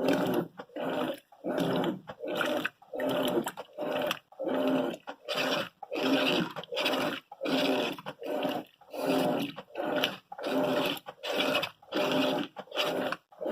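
Electrolux TOP8S top-loading washing machine agitating: the motor and agitator hum in short, even strokes, reversing about three times every two seconds.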